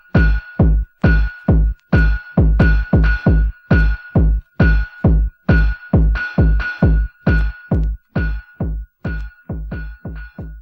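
Early-1990s techno: a rapid, uneven pattern of bass-heavy drum-machine hits with a steady high tone held over them, getting quieter over the last couple of seconds as the track fades out.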